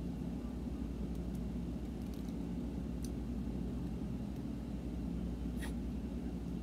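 Steady low background rumble, with a few faint small clicks and one slightly sharper tick about five and a half seconds in.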